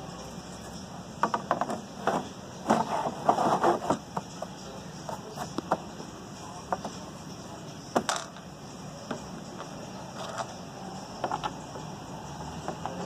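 Hands handling the back of a plastic wall clock and its hardboard panel: irregular clicks and knocks, a quick flurry in the first few seconds, then a single sharp knock and a few scattered clicks.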